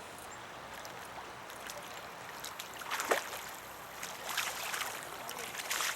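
River water running steadily, with three louder splashing surges about three, four and a half and six seconds in.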